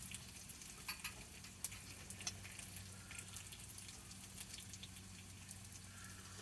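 Quiet room tone: a faint steady low hum under an even hiss, with a few small clicks.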